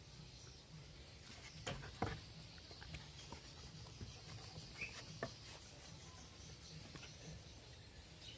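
A few faint, scattered taps and knocks from a dog's paws on wooden deck boards, the loudest about two seconds in, over a low steady outdoor background.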